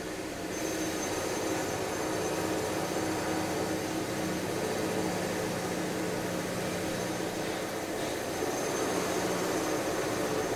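Construction machinery running, a steady mechanical drone with a constant hum and a faint high whine.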